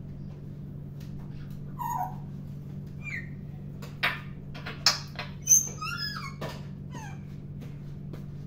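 An African grey parrot making a scattered string of short squeaky whistles and sharp clicks, some notes sliding up or down in pitch, busiest between about four and six and a half seconds in. A steady low hum runs underneath.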